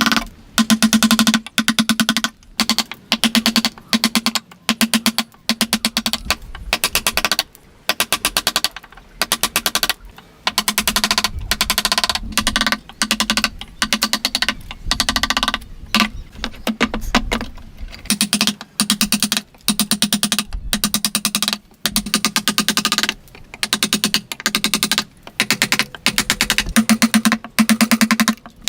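Repeated bursts of rapid ticking and knocking from hand tools working wood, each burst lasting about a second with short gaps between.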